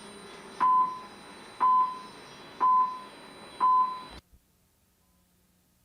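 Four short beeps on one high, steady tone, about a second apart, from a radio broadcast over a steady hiss. The sound then cuts off abruptly into near silence.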